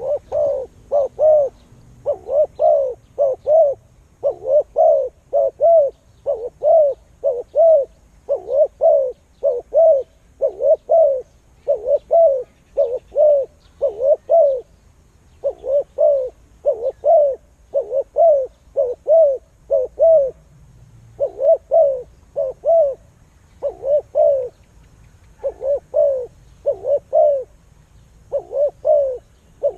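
A bird calling over and over, loud and close: short low notes, each rising and falling in pitch, in quick groups of two or three with brief pauses between groups.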